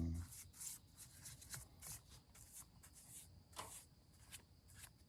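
Faint, irregular rubbing and wiping strokes of a hand working oil finish into a wooden burl.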